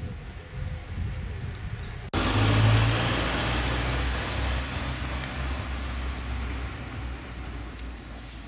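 Road traffic: a motor vehicle's engine hum and tyre noise, starting suddenly about two seconds in, loudest just after, then slowly fading away.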